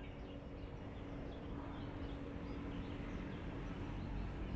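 Small birds chirping, with short high calls scattered throughout, over a steady low rumble.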